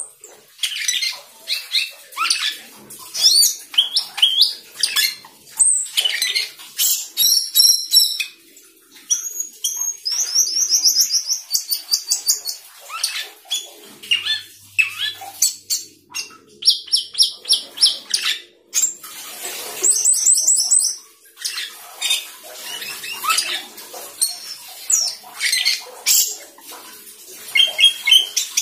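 Asian glossy starling (Aplonis panayensis) singing without pause: a busy, varied song of high whistles, clicks and chirps, broken several times by runs of fast, evenly repeated high notes. It is the full, long-running song full of mimicked phrases that keepers call 'gacor teler full isian'.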